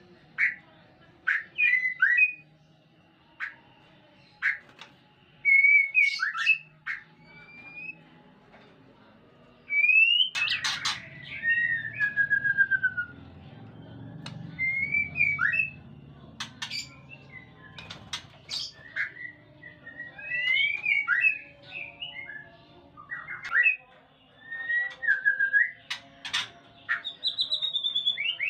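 White-rumped shamas calling: short whistled phrases, some sliding up or down in pitch, broken again and again by sharp clicking notes. A low rumble sits underneath for several seconds in the middle.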